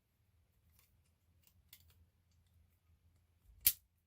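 Silky Gomboy folding saw being worked open and shut, with faint small clicks of the blade moving in the handle, then one sharp click near the end as the blade's lock snaps into place.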